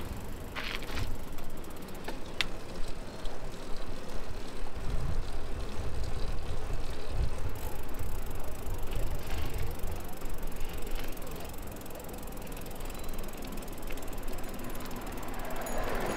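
A bicycle being ridden on pavement: continuous riding noise with a low, uneven rumble and a few short clicks and rattles from the bike.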